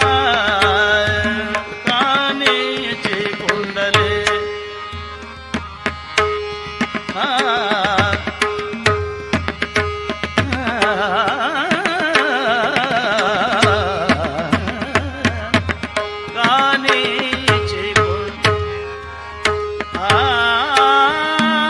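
Marathi devotional gavlan music: tabla strokes keep the rhythm under a wavering, ornamented melodic line and a steady held note.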